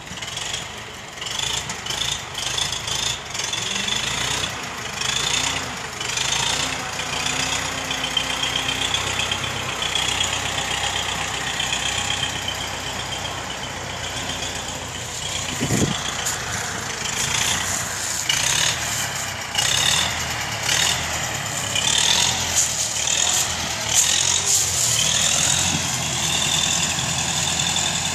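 Universal 650 tractor's diesel engine running as it works, its revs rising and falling, with a single sharp knock about halfway through.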